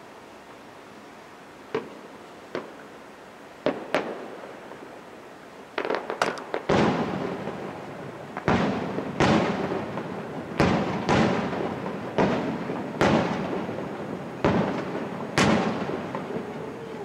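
Aerial firework shells bursting: a few sharp isolated pops at first, then from about a third of the way in a rapid run of loud booms roughly a second apart, each echoing away.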